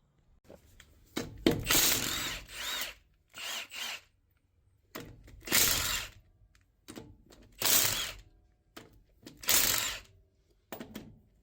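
Power tool, most likely an impact wrench, loosening the wheel lug nuts in about six short bursts with pauses between them.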